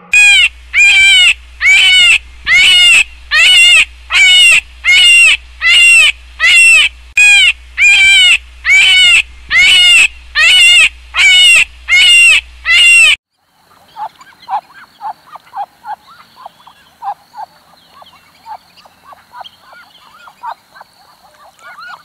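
A loud high-pitched animal call, repeated more than a dozen times a little faster than once a second, breaks off suddenly about two-thirds of the way in. A run of faint, quick chirps follows.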